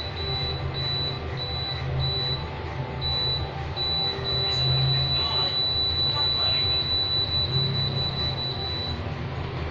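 Panasonic CS-ZV5UKP split air conditioner running, a steady low hum with a thin high electronic whine that cuts in and out and stops near the end.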